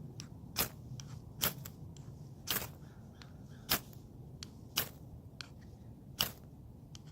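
Sparks being struck repeatedly into tinder with a fire striker: about six sharp scrapes, roughly one a second, in an attempt to light a fire.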